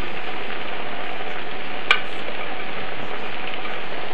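Pork and its juices sizzling steadily in a stainless-steel Zepter pan on the gas flame, under layers of potato and onion. A single light click about two seconds in.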